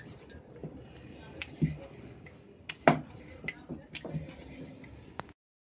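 Wooden rolling pin rolling stiff dough thin on a round stone board, with a rumble of rolling and scattered sharp clacks as the pin knocks the board. The loudest clack comes about three seconds in. The sound cuts off suddenly near the end.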